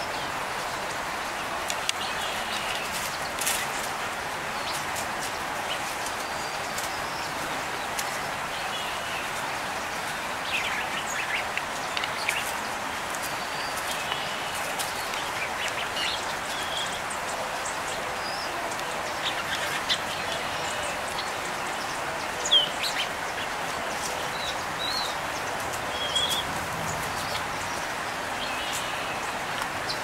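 Small songbirds giving short, high chirps and call notes, scattered irregularly over a steady background hiss. One call about two-thirds of the way through is louder than the rest.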